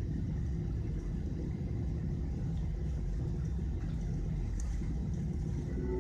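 Steady low rumble inside an airliner cabin as the aircraft's engines run during taxiing.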